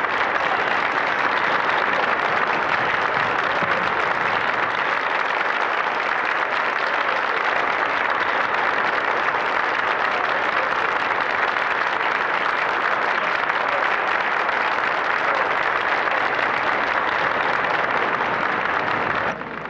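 Large theatre audience applauding, a dense and steady sustained ovation that breaks off suddenly just before the end.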